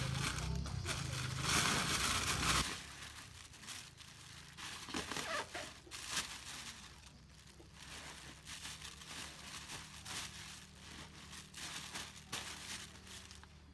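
Clear plastic bag crinkling and rustling as it is handled and filled with washed leafy greens, in irregular crackles. A low hum runs under it for the first few seconds, which are louder.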